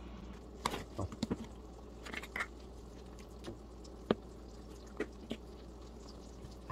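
Plastic spice shakers handled and shaken over raw fish fillets: a scatter of light clicks and taps, a few bunched together about a second in and a sharp single tap about four seconds in.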